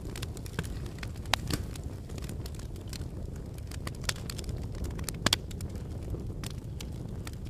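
Wood fire crackling: irregular sharp pops and snaps over a steady low rumble, with the loudest pops about a second in and about five seconds in.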